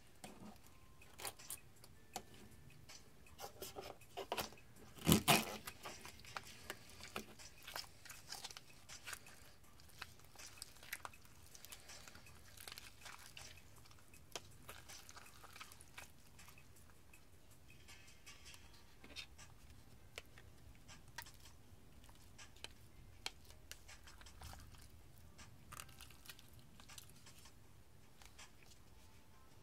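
Cold, stiff slime being squeezed and packed into a small plastic cup by hand: irregular sticky clicks and crackles, with one louder knock about five seconds in.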